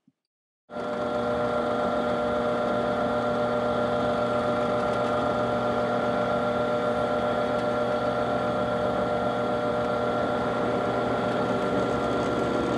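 Benchtop drill press motor running steadily, starting about a second in, as its bit is fed down through a wooden rifle stock to drill a pin hole through the barrel tenon.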